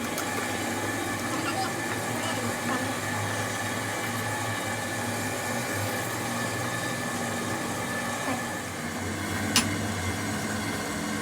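An electric workshop machine running steadily with a motor hum, with one sharp click about nine and a half seconds in.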